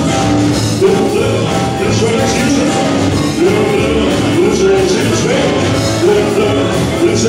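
Live rock and roll band playing loudly: electric guitars, keyboard, bass and drums, with a male singer over a repeating melodic line.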